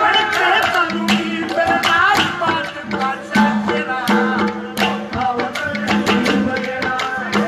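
Live Haryanvi ragni folk music: a man singing at the microphone over a harmonium with a steady drone, driven by a steady dholak drum beat.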